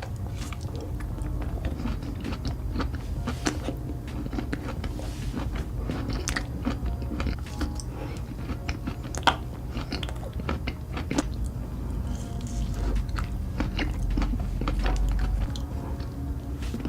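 Close-miked mukbang eating sounds: a person biting and chewing ice cream, with many wet mouth clicks and smacks and some crunching, over a steady low hum.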